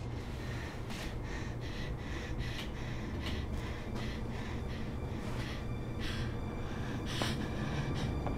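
A frightened woman breathing quickly and gasping, in short hissy breaths about two or three a second, over a steady low rumble.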